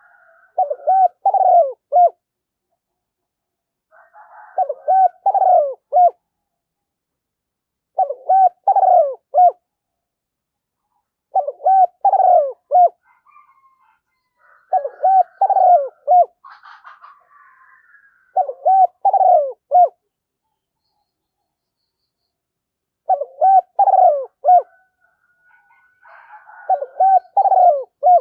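Spotted dove cooing: repeated phrases of three or four deep coos, about one phrase every three to four seconds, with a longer pause about two-thirds of the way through. Faint chirps of another bird sound in the background in the middle.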